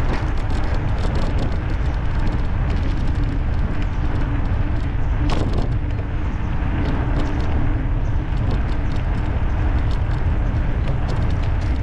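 Loud, steady wind rumble on the camera's microphone from riding an electric bicycle, with a faint steady hum and scattered light ticks from the moving bike.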